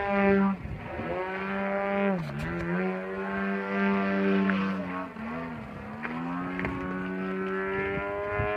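Aeroplus 111-inch Edge RC aerobatic plane flying overhead, its GP 123 engine with rear-exit canister mufflers droning steadily. The engine note dips sharply in pitch twice, about two and five seconds in, then rises again.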